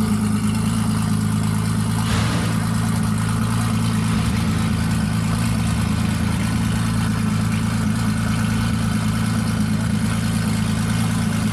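An engine idling steadily, a low, even hum that stays at one pitch.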